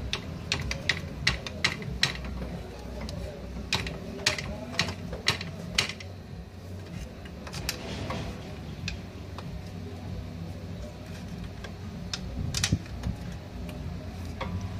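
Irregular sharp metallic clicks and clinks of hand tools and parts knocking against metal under a car, densest in the first few seconds, over a steady low rumble.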